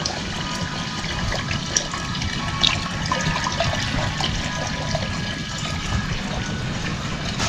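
Liquid pouring: fresh milk poured from a plastic jug through a metal tea strainer into an aluminium pot, over a steady sound of running water.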